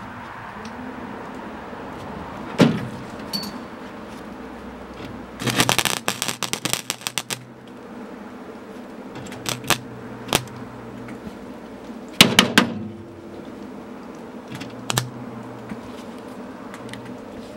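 MIG welder tack-welding a steel knockout disc over a hole in a steel truck door panel. The arc crackles in a burst of about two seconds a third of the way in and a shorter burst about two-thirds in, with a few single sharp clicks between, over a steady low hum.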